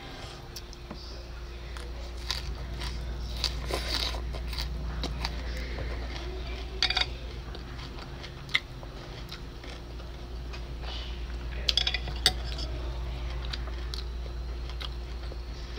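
Metal chopsticks clicking against a glass food container at scattered moments while someone chews a mouthful of food, over a steady low hum.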